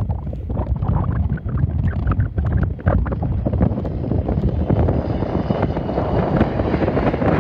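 Wind buffeting the microphone over a low rumble that grows louder and steadier toward the end.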